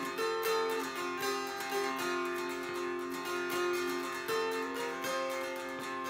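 Handmade mountain (Appalachian) dulcimer with a poplar top and back and walnut sides, strummed steadily: a melody changes note on the fretted string over low drone strings that ring on unchanged.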